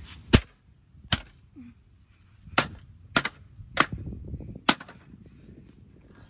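A hammer striking the sheet-metal case of an old desktop computer: about six sharp metallic blows, irregularly spaced half a second to a second and a half apart, over wind rumble on the microphone.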